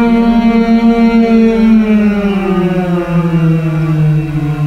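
Women's voices humming a long, held 'mmm' that slides slowly and steadily down in pitch towards the lowest note they can reach. It is a voice exercise meant to set the abdomen vibrating.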